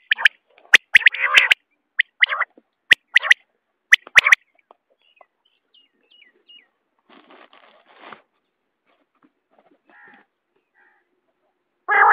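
Common quail calling: a run of short, sharp calls over the first four seconds or so, then a mostly quiet stretch with a few faint soft chirps, and another loud call just before the end.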